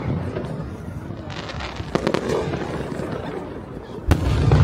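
Fireworks display: firework shells bursting, with a quick cluster of sharp bangs about two seconds in and a heavier boom near the end that rumbles on.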